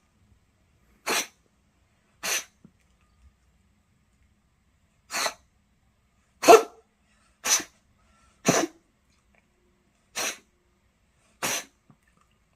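A cat sneezing over and over: eight short, breathy, half-formed sneezes at uneven gaps of one to two and a half seconds.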